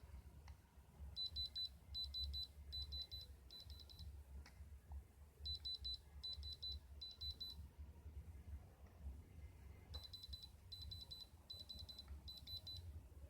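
Electronic beeper sounding in short bursts of rapid high-pitched beeps: four bursts, a pause, three bursts, a longer pause, then four more, over a faint low hum.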